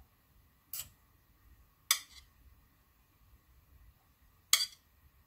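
Metal chopsticks clicking against a stone bibimbap bowl three times while bracken namul is placed on the rice, the last click the loudest.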